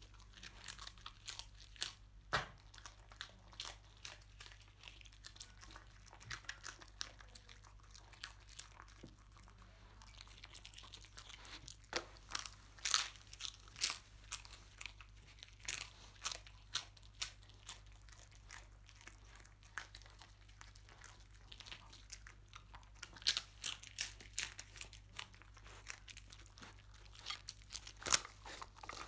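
A dog crunching and chewing pieces of nurungji, the hard, dry crust of scorched rice, in sharp, irregular crunches with short pauses between bites.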